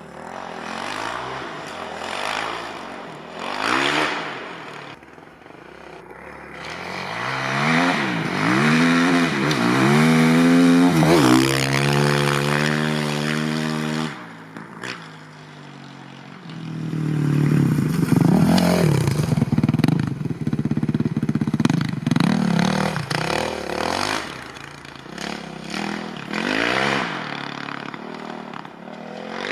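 Kawasaki KX450F's 450 cc single-cylinder four-stroke motocross engine revving up and down as the bike is ridden, with a long climbing rev that cuts off sharply about halfway through and another hard pull later, and clatter from the bike between revs.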